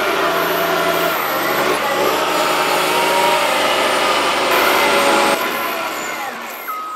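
Caterpillar 938 wheel loader's diesel engine running and revving, its pitch rising and falling, with abrupt changes between edited shots. Near the end it fades and a reversing alarm starts beeping.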